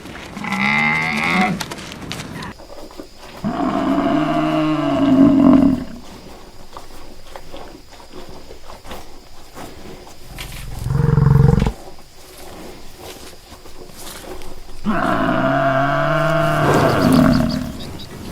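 Four long, low animal calls a few seconds apart, each a drawn-out call lasting one to two and a half seconds; the third is the shortest and deepest.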